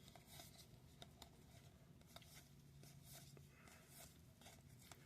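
Faint handling of trading cards and their packaging: soft scrapes and scattered light clicks as cards are slid and flipped, over a faint low room hum.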